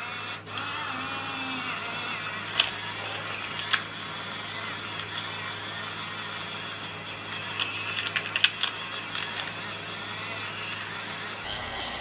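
Tiny battery-operated toy washing machine running with a makeup sponge in water in its drum: a steady small-motor whine and hum, with a few light plastic clicks.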